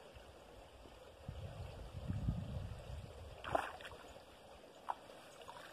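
Cast net being hauled out of shallow, muddy pond water: faint swishing and trickling of water off the mesh, with a low rumble swelling in the middle and a couple of short knocks.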